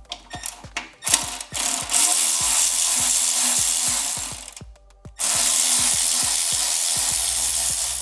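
Ratchet wrench clicking rapidly as it backs out a 6 mm bolt. There are two long runs of fast ratcheting, one starting about a second in and another after a brief pause past the halfway point.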